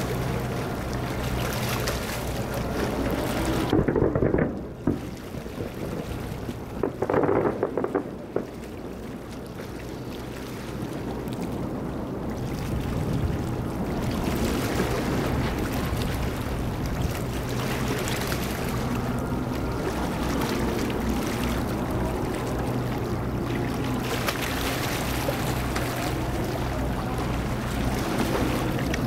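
Distant aerial fireworks: two louder booms about four and seven seconds in, over steady low hum and outdoor noise.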